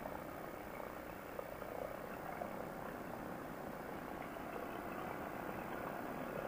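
Quicksilver ultralight's engine running at low throttle on the final approach to landing, with wind rushing past the open seat. A steady, even sound.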